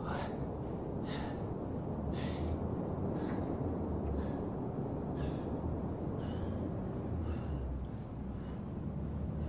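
A man breathing hard from the exertion of bodyweight squats, a sharp breath about once a second.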